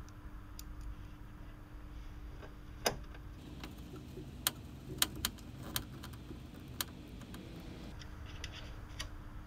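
Motherboard being screwed into a steel PC case: a handful of sharp, irregular metallic clicks and taps of screws and screwdriver, over a faint steady hum.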